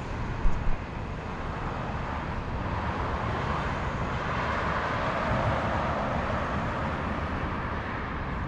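Road traffic on a multi-lane street. One passing vehicle's noise swells and fades between about three and seven seconds in, and two brief thumps come about half a second in.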